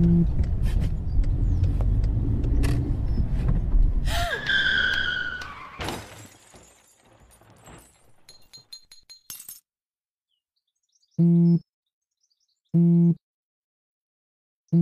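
A phone's text-notification vibration buzz, then a low car rumble, a sharp screech about four seconds in and a crash with breaking glass and clattering debris that dies away by about ten seconds. After a short silence the phone buzzes three more times, in short, evenly spaced pulses.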